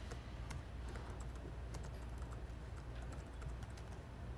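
Typing on a computer keyboard: faint, irregular key clicks as a line of code is entered.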